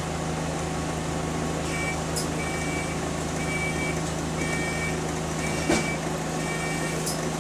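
Bus engine running with a steady low hum heard from inside the bus, over which a series of six short electronic beeps at one pitch sounds about once a second. A single sharp knock comes just before the last beeps.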